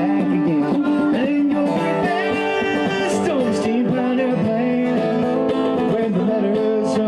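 Live bluegrass played on mandolin and acoustic guitar, with a man singing the lead.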